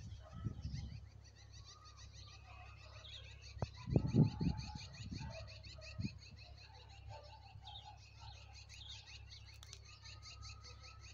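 Birds chirping, a dense run of quick high chirps repeating without a break, with a cluster of louder low thumps about four seconds in.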